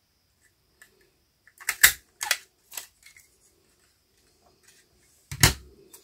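Plastic lever craft punch clacking as it is worked with paper caught in its cutter: three sharp clacks in quick succession about two seconds in, then one more knock near the end.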